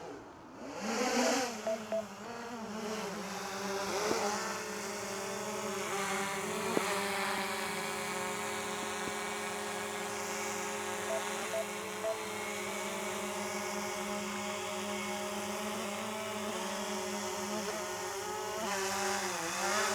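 DJI Mavic Air 2 quadcopter's propellers spinning up about a second in, then a steady buzzing whine as it flies, bending slightly in pitch now and then.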